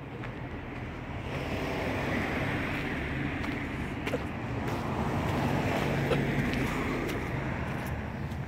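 Street traffic noise, likely a passing vehicle, rising over several seconds and then easing off, over a faint low hum.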